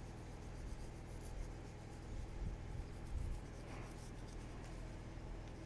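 Faint scratching of a soldering iron tip dragged through solder along the fine contacts of an LCD panel's ribbon flex cable, with a couple of soft bumps about two and a half and three seconds in, over a steady low hum.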